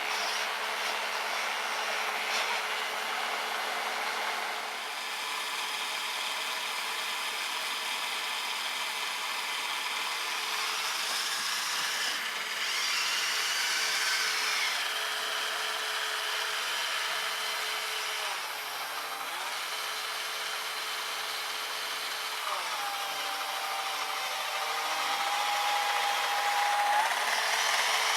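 Whine of a radio-controlled snowblower running: its small brushed electric motor drives the auger with a steady mechanical whir. The pitch slides and shifts several times as the motor speed changes, with a clearer tone held for a few seconds near the end.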